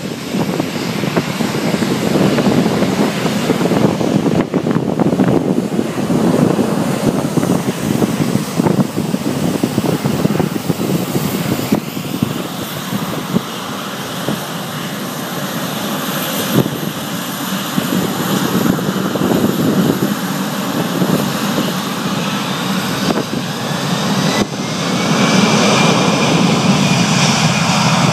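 Jet engines of a Boeing 757 airliner running loudly on the runway. About three-quarters of the way through, a whine rises in pitch and the sound grows louder as the engines spool up to takeoff thrust.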